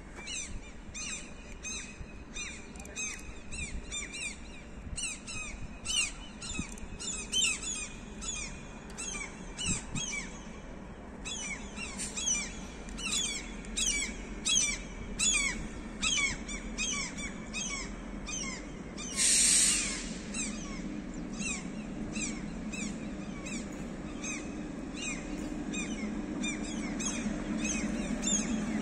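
Birds calling over and over in short, falling chirps, about two a second. A brief hiss comes about two-thirds of the way through. A low hum from the approaching passenger train grows toward the end.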